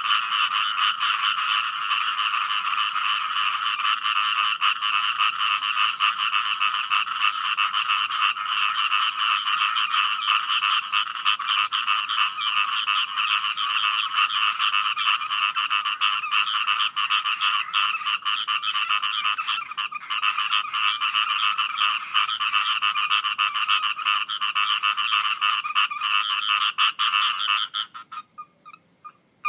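Dense chorus of many frogs calling continuously, with the calls packed into a high, buzzing band. The chorus stops abruptly near the end, leaving only a few faint calls.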